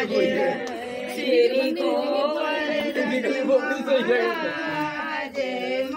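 Several voices singing a devotional chant together, with long drawn-out notes.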